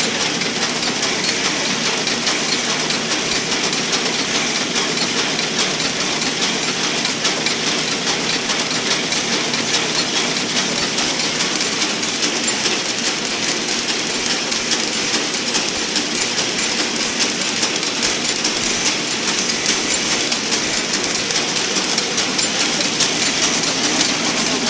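Automatic cup counting and packing machine running: a steady mechanical clatter of rapid clicks over a continuous whir.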